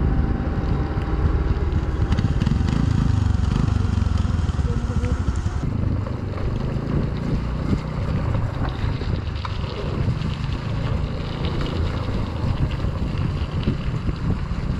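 Motorcycle being ridden at a steady pace: its engine running under steady wind noise on the camera's microphone.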